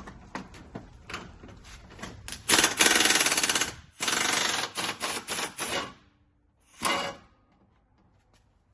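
Impact wrench hammering in bursts while loosening bolts: one long run a few seconds in, then several short bursts and a last brief one, with scattered clicks of tools before.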